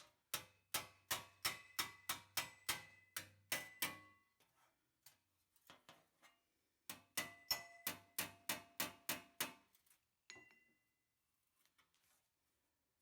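Hammer striking metal in two quick runs of blows, about three to four a second, each blow leaving a short metallic ring. The runs are separated by a pause of a few seconds, and a few faint taps follow near the end.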